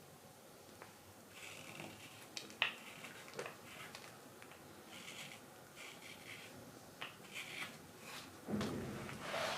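Carving knife paring thin cuts from a wild cherry spoon bowl: a series of short, light scraping strokes with sharp clicks as the blade bites and leaves the wood, then a longer, louder scrape near the end.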